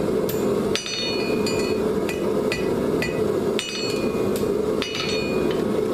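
Blacksmith's hammer striking hot steel on an anvil: a string of uneven blows, each with a bright metallic ring, over a steady rushing noise.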